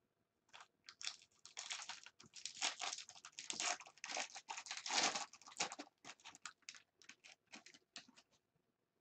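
Foil wrapper of a Bowman Draft Jumbo baseball card pack crinkling as it is torn open and stripped off the cards: a dense run of crackles, loudest in the middle, thinning to scattered crackles near the end.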